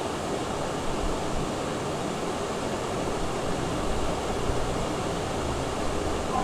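Steady rushing background noise with a faint low hum, with no distinct knocks or clicks.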